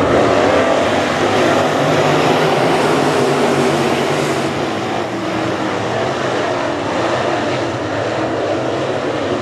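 A pack of dirt late model race cars with crate V8 engines running together at full throttle, heard as one steady mass of engine noise as the field takes the start.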